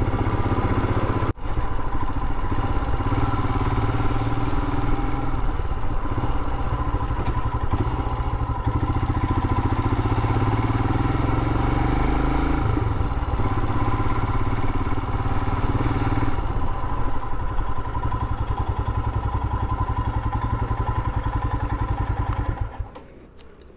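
Royal Enfield Himalayan's single-cylinder engine running as the motorcycle is ridden, heard from the rider's seat. The sound drops away near the end as the bike comes to a stop.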